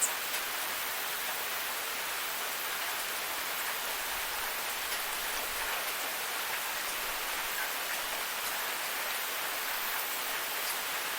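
Steady rain falling, an even hiss with a few single louder drops ticking now and then.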